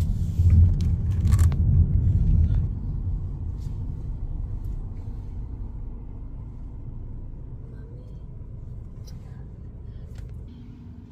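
Low rumble of a car's road and engine noise heard from inside the cabin, loud for the first two seconds or so, then dying away steadily as the car slows for a stop sign. A few faint clicks are heard along the way.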